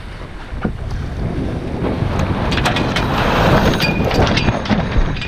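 Wind buffeting the microphone on a sailing yacht under way, over the rush of water and scattered sharp clicks and rattles from the boat's gear. A louder rush builds about two seconds in and eases off near the end.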